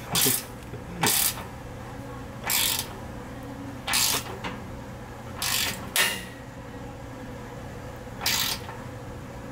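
Ratcheting box-end wrench clicking in short bursts as a bolt on a steel rock slider's frame mount is tightened, about seven bursts spaced one to two seconds apart.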